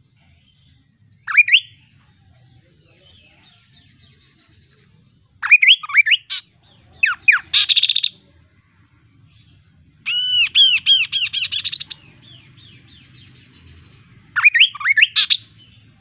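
A chestnut-capped babbler (kaso-kaso) singing: five short bursts of quick rising whistled notes, one of them a rapid two-second run of repeated arched notes, with pauses of a few seconds between bursts.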